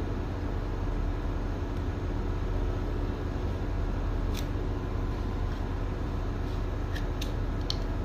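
Steady low hum, with a few light metallic clicks as a screwdriver and steel wire-rope strands are worked into a hand splice: one about halfway through and three close together near the end.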